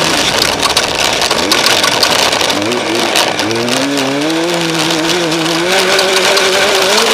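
Off-road race vehicle's engine under way, its pitch climbing about halfway through as it accelerates and then holding steady under a loud, constant rush of wind and terrain noise.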